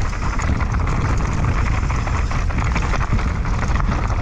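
Mountain bike descending a dry trail of loose stones: tyres crunching over gravel and the bike clattering and rattling with many small knocks, over a steady low rumble of wind buffeting the camera microphone.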